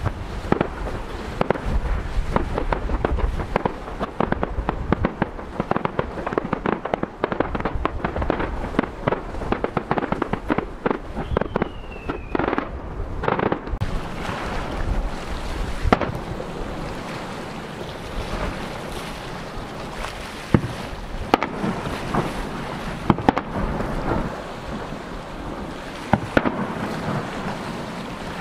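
Aerial fireworks bursting, with dense crackling in the first half and a series of sharp single bangs in the second half. A short whistle falling in pitch sounds about twelve seconds in.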